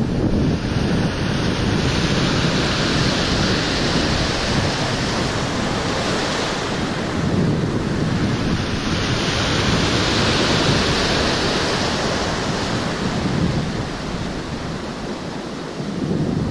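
Ocean surf breaking and washing, two waves swelling up and fading away, with wind rumbling on the microphone.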